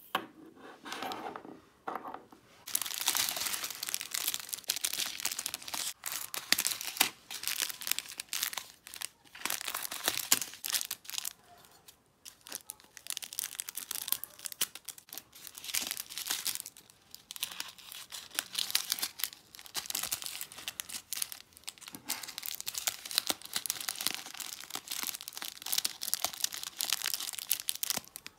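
Small clear plastic bags of resin diamond-painting drills crinkling and rustling as they are handled and cut open with scissors. The crinkling is nearly continuous from about two seconds in, with a couple of short pauses.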